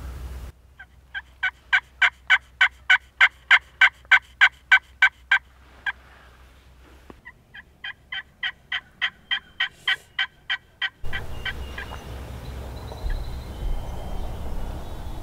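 Slate pot turkey call scratched with a wooden striker, giving hen yelps: two long runs of evenly spaced notes, about three a second, with a short pause between them. A steady low rushing takes over after the calling stops.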